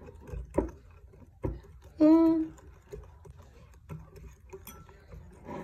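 Wire whisk beating a thick chocolate mixture in a ceramic bowl, with scattered light clicks and taps of the whisk against the bowl. About two seconds in, a short hummed voice sound is the loudest thing.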